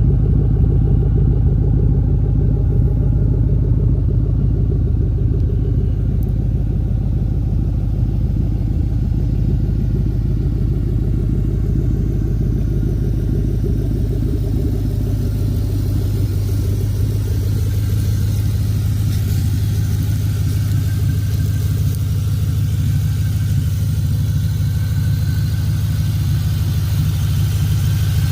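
2000 Ford Mustang GT's 4.6-litre V8 running at a steady idle through its exhaust, a deep, even rumble with no revving; the low-end tone shifts slightly about halfway through.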